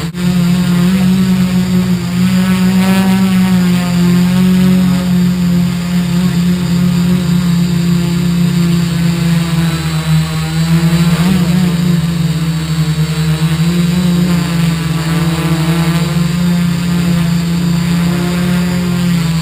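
ArduCopter quadcopter's four electric motors and propellers buzzing loudly and close up, the pitch shifting up and down as the motors change speed to hold and steer the craft.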